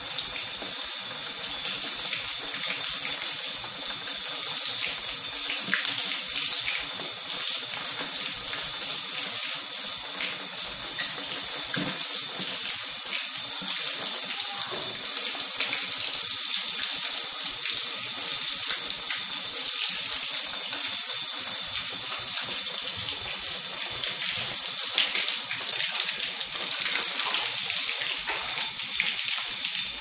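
Water pouring steadily from a stone spout into a stone bathtub as it fills.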